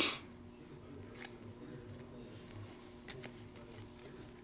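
Trading cards handled in a stack by hand: a short swish as a card is slid off the stack right at the start, then a few faint clicks as cards are moved, over a faint steady hum.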